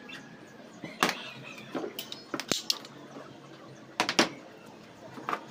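Scattered light clicks and knocks of a brass valve and PVC pipe being handled and set down on a board: a few single knocks, a quick cluster about two to nearly three seconds in, and a pair near four seconds in.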